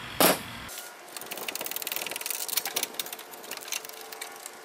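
Ratchet wrench clicking rapidly as a loosened nut on the hood latch assembly is spun off its stud, after a single sharp knock about a quarter second in.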